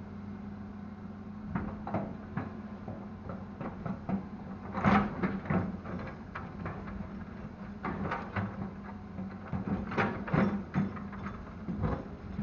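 Diesel engine of a Hitachi excavator running steadily under a series of irregular knocks and clunks as soil is loaded into a dump truck, loudest about five seconds in and again near ten seconds.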